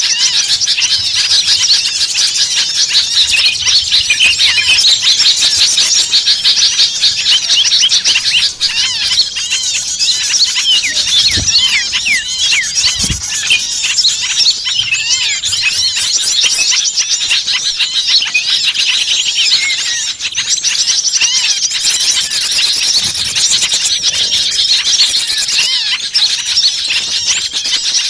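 A dense chorus of many small songbirds twittering and chirping at once in rapid, overlapping high calls. This is the agitated 'noisy small birds' (burcil ribut) chatter used in pikat lure recordings to draw small birds in. Two brief low thumps come near the middle.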